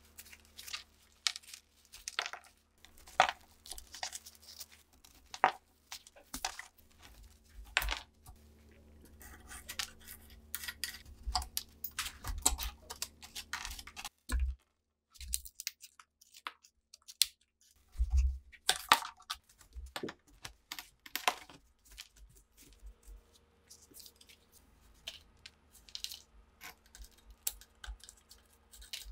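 A thin metal pick scraping and prying hardened mud off a rusted SA-26 submachine gun: irregular scratches, ticks and small crumbling clicks as clods break away, with a pause of a couple of seconds midway.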